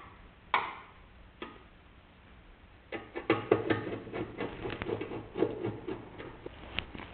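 Hand screwdriver backing screws out of a microwave's sheet-metal cover: a couple of single clicks, then from about three seconds in a quick, irregular string of small metallic clicks and ticks.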